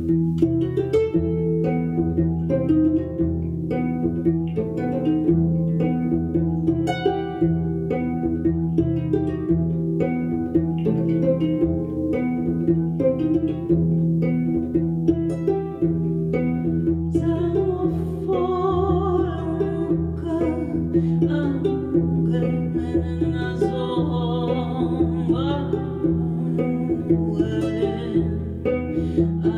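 Kora, the West African gourd-bodied harp, plucked in a flowing run of notes over steady low notes. A woman's voice starts singing about halfway through.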